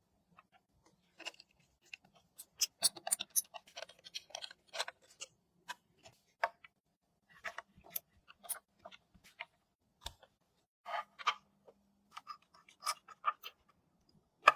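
Small clicks, taps and brief scrapes of PC parts and hardware being handled and fitted during an ITX build, coming irregularly with short quiet gaps between them.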